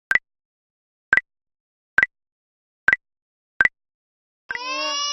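Chat app message-notification pops: five short, identical two-tone blips, about one a second, each one a new incoming message. Near the end a loud, whining cry-like sound starts, its pitch sliding slowly down.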